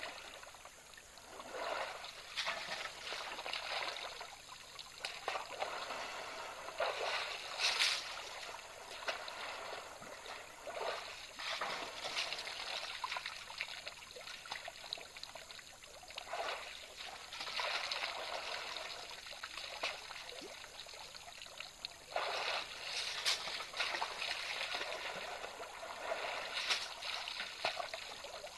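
African elephants bathing and drinking in a waterhole, the water splashing and sloshing in irregular surges every second or two, with a couple of sharper splashes.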